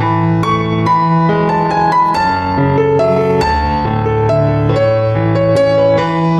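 Background piano music: a melody of struck notes over lower held notes, at a steady even level.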